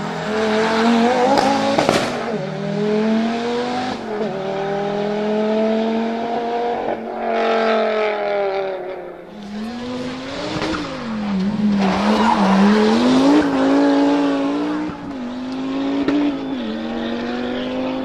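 Rally car engines driven hard, revving up and dropping back through quick gear changes again and again, with a sharp crack about two seconds in.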